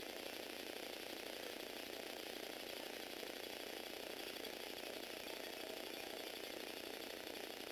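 Small Tomy Aero Spider toy motor driving a Lego Technic four-wheel-drive gear train, running steadily with a fast, even gear rattle.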